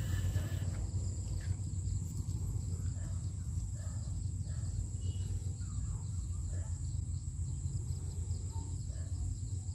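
Rural outdoor ambience: a steady high insect drone with faint, scattered bird chirps over a low wind rumble on the microphone.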